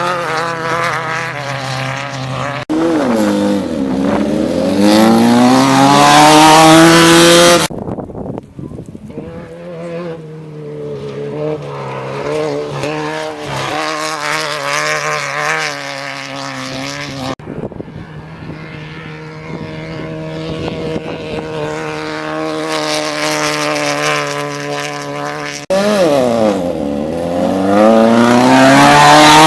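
Class 1600 and Class 9 desert race buggies, air-cooled Volkswagen engines, running hard at high revs in a string of short clips. Twice the engine pitch dips and then climbs steeply as a car passes and pulls away, and these are the loudest moments: just before eight seconds in, and near the end.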